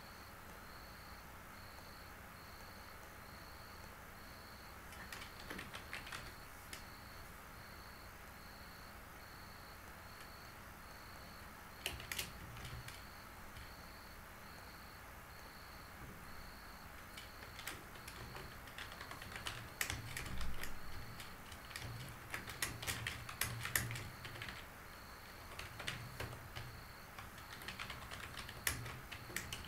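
Computer keyboard typing: scattered key clicks, a few around five and twelve seconds in, then frequent runs of clicks through the last third. Underneath, a faint high-pitched tone pulses on and off evenly, a little more than once a second.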